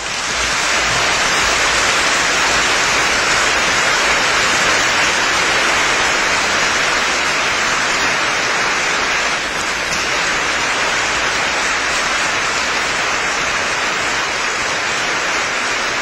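Audience applauding, a dense and steady ovation at the end of a live performance.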